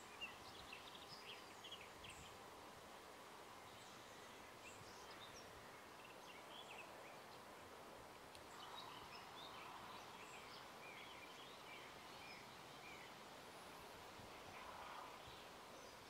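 Faint birdsong: small birds chirping briefly here and there over a steady background hiss.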